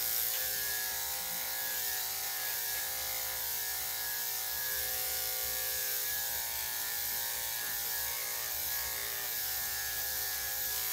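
Electric dog clippers fitted with a #3 3/4 blade running with a steady buzz while trimming a small dog's coat.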